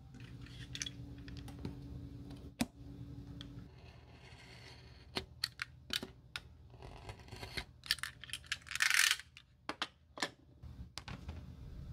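Snap-off utility knife slicing through a sheet of black rubber shoe-sole material along a steel ruler, with sharp clicks and taps of the ruler and blade on the bench. There are scraping cut strokes, the loudest about nine seconds in.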